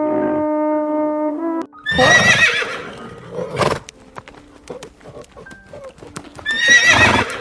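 A horse whinnying twice, a loud high wavering neigh about two seconds in and another near the end, with scattered sharp clicks between them. At the start, steady held brass-like tones sound and cut off about one and a half seconds in.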